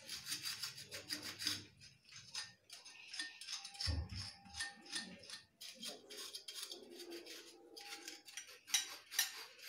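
Scrub pad rubbing over a small silver lamp, a rapid run of short scratchy strokes with faint metallic ringing now and then and a soft knock about four seconds in.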